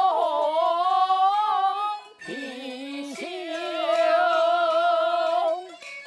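A woman singing long, held wordless notes with vibrato over musical accompaniment, with a short break about two seconds in. The voice stops near the end, leaving quieter instrumental notes.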